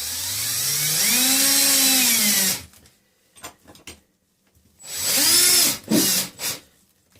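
Power drill driving a large number 12 wood screw through a plastic toilet repair flange into the floor, in two runs: a long one whose motor pitch rises and then sags under load before it stops, and a shorter one about five seconds in. A few light clicks fall between and after the runs.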